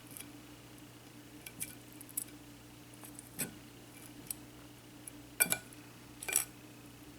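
A few light clinks and taps of hard kitchenware, such as a utensil against a dish or pan, spread over several seconds, the loudest two near the end, over a faint steady hum.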